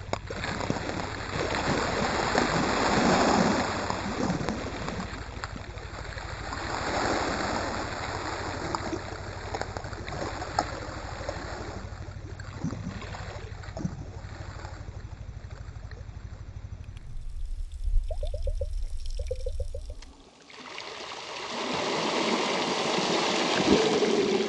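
Small waves lapping and washing over the pebbly sand at the water's edge, swelling and easing every few seconds, with a few brief splashes.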